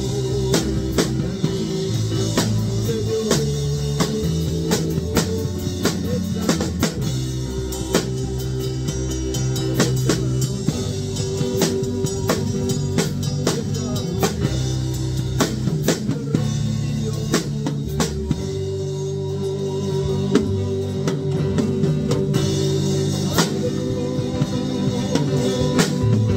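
Acoustic drum kit played live, with regular drum strokes and cymbal hits, over instrumental music with guitar and bass. The deepest bass drops out for a few seconds about two-thirds of the way through.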